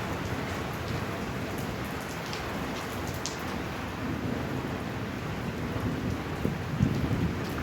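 Heavy rain pouring down steadily on hard surfaces, with scattered sharp ticks of drops striking and a few low rumbling swells near the end.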